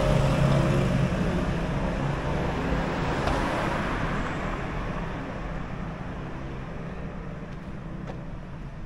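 Street traffic: a motor vehicle's engine rumbling close by, then fading steadily as it moves away.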